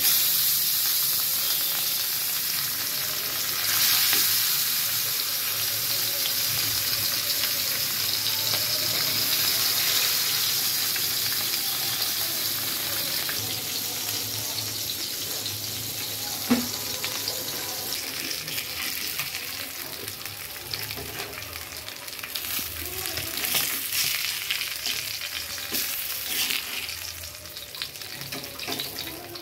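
Meni fish (mud perch) frying in hot oil on a cast-iron tawa: the sizzle starts suddenly as a fish is laid into the oil, then settles to a steady sizzle that slowly eases. A single sharp click comes about halfway through, and the sizzle flares up a few times near the end.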